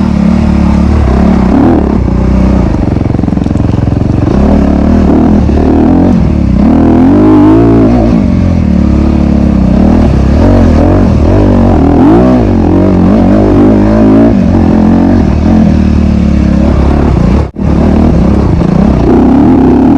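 Honda CRF250RX's single-cylinder four-stroke engine revving up and down over and over as the dirt bike is ridden hard. The sound drops out for an instant near the end.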